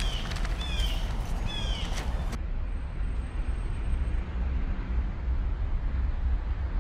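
Outdoor park ambience: a steady low rumble, with a bird chirping several short falling notes that stop abruptly a little over two seconds in, leaving only the rumble.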